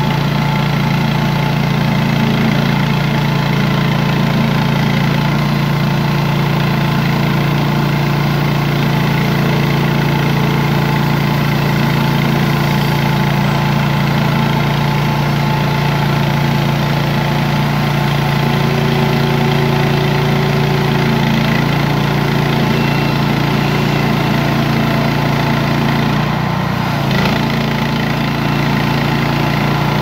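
Small gasoline engine of a Range Road RR5026 portable bandsaw sawmill running steadily while the band blade saws through a log, with a brief change in its note near the end.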